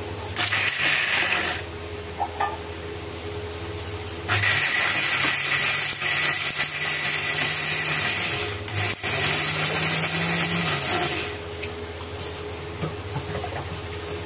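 Electric mixer grinder running with boiled chickpeas in its steel jar, grinding them to a paste. A short pulse comes about half a second in, then two longer runs from about four seconds in, with a brief stop near nine seconds.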